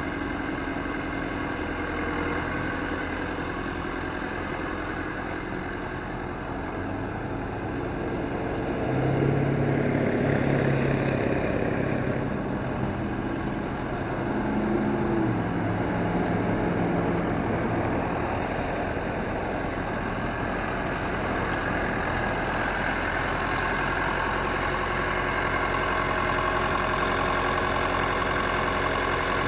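David Brown 990 tractor's engine running as the tractor drives about. It grows louder and shifts in pitch for several seconds about a third of the way in, then settles back to a steady run.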